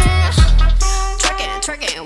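Hip hop backing track with a heavy bass note and a rapped or sung vocal line.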